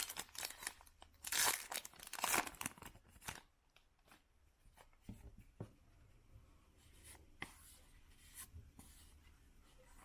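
Baseball card pack wrapper torn open and crinkled for about the first three seconds. Then quieter, with light ticks and rustles as the cards are handled.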